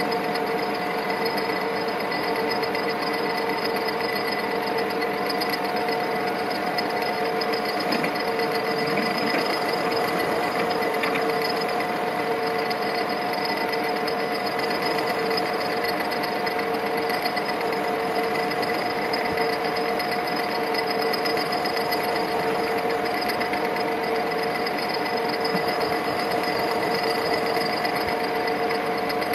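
Metal lathe running at a steady speed while turning a metal workpiece, its headstock gearing giving a steady whine.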